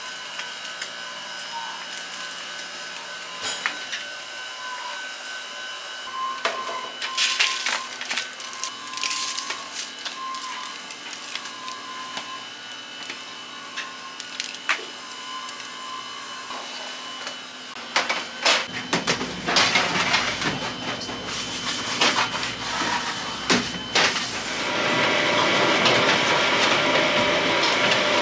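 Bakery handling sounds: a spatula scraping chocolate filling from a steel bowl and a plastic dough scraper working the buns in foil pans, with scattered clicks and taps over a steady machine whine. About two thirds of the way in, louder knocks start. Near the end a louder steady rushing noise sets in.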